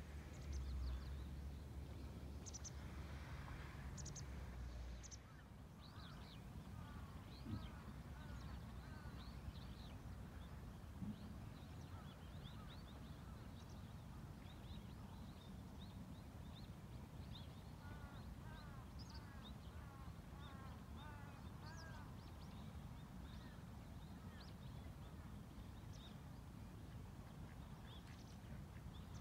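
Faint birds calling across open water: bouts of short, repeated calls, the clearest about eight seconds in and again around twenty seconds, with scattered higher chirps. A steady low rumble runs underneath, louder in the first five seconds.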